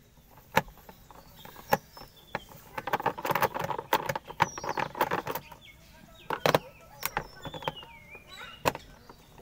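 A screwdriver clicking and scraping in the recessed screw bosses of an induction cooktop's plastic base as its screws are backed out, in irregular sharp clicks with a denser run of scraping in the middle. Birds chirp faintly in the background.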